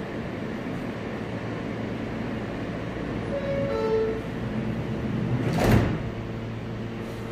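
New York subway R160 car's two-note door chime, higher then lower, about three and a half seconds in, signalling that the doors are about to close. The doors then slide shut about two seconds later with a short burst of noise, over the steady hum of the standing train.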